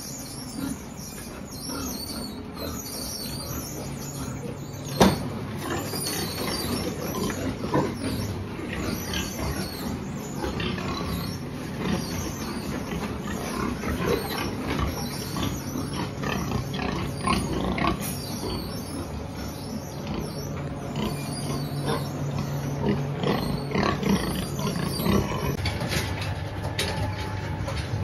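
Many penned pigs calling at once, a busy, continuous din with frequent clicks and knocks; one sharp knock stands out about five seconds in.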